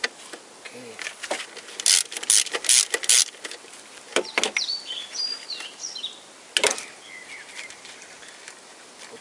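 Socket wrench on a 10 mm nut at the alternator's cable terminal, clicking in short bursts: four quick ones in a row about two seconds in, then a few more.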